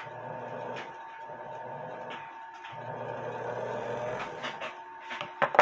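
Small electric motor of a watchmaker's lathe running with a steady hum, cutting out briefly about two seconds in and starting again. Its hum stops near the end, followed by a few clicks and one sharp knock.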